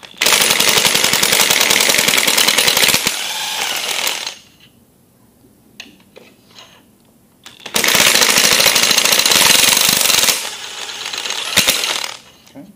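Cordless impact wrench hammering in two runs of about four seconds each, spinning spark plugs out of a Gen 3 Hemi's aluminium cylinder head. Small clicks come between the runs.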